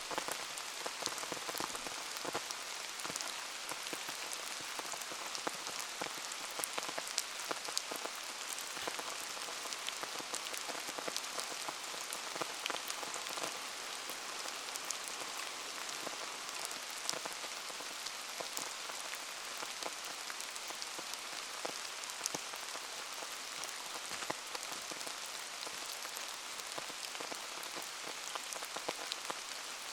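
Steady rain falling around a burning bonfire, a constant hiss with a dense scatter of sharp ticks and pops throughout.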